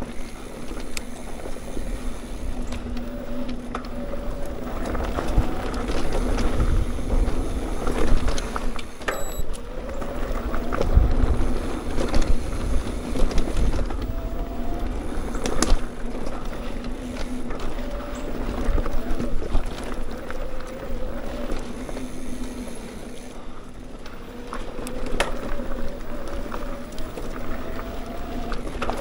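Mountain bike being ridden along a dirt trail: tyres rolling and the bike rattling over the ground, over a steady low rumble. A faint whirring tone rises and falls with speed, and sharp knocks come here and there.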